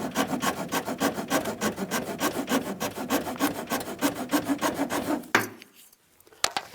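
Hand file rasping quickly back and forth across the edge of a plastic fuse box cover, about five strokes a second, cutting a notch so the wires will not be pinched. The filing stops about five seconds in, and a short click follows near the end.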